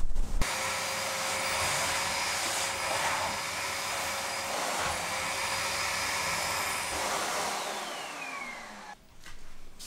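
Vacuum cleaner running steadily with its motor whine, then switched off about seven seconds in, the whine falling in pitch as the motor winds down over the next two seconds.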